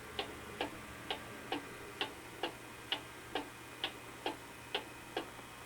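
Vintage cuckoo clock ticking steadily, its escapement clicking a little over twice a second while the clock runs toward the hour.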